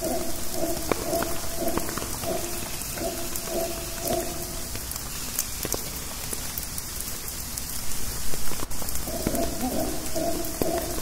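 Rain dripping from rainforest foliage, with irregular drops and a steady hiss. Under it, a distant low pulsing call from howler monkeys stops about halfway through and starts again near the end.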